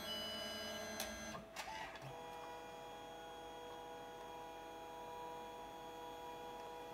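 Canon SELPHY CP1500 dye-sublimation photo printer running between colour passes. The paper draws back in after the yellow layer and feeds out again for the magenta layer, with a faint steady motor tone and a few clicks about one to two seconds in.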